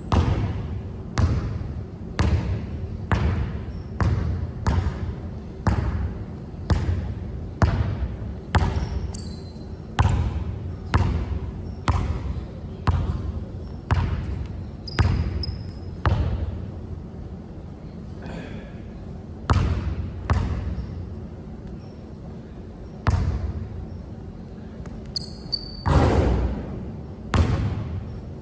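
Basketball being dribbled on a hard court, bouncing in a steady rhythm a little faster than once a second. After about sixteen seconds there is a pause, then a few scattered bounces. A few short high squeaks are heard along the way.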